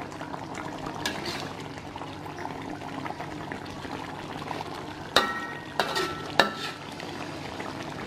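Thick soy-sauce stew of beef liver bubbling steadily in a pan as its sauce reduces down, with a spatula stirring through it. Sharp knocks of the spatula against the pan come once about a second in and three times a little past halfway.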